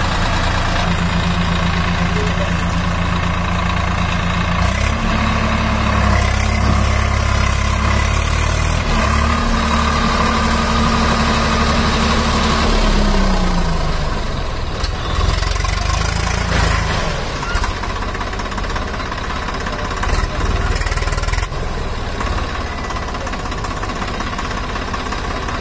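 Swaraj 744 FE tractor's three-cylinder diesel engine running while stuck in deep mud, its revs rising about five seconds in, held for several seconds as the driver tries to pull free, then dropping back down.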